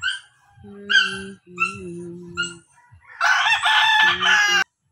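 Rooster crowing once, a loud call of about a second and a half that cuts off suddenly near the end, after a run of short, evenly spaced chirping calls.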